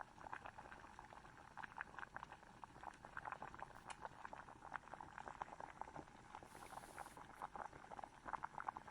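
Chicken in a thick, creamy gravy simmering on a low flame, a faint, steady run of small bubbles popping.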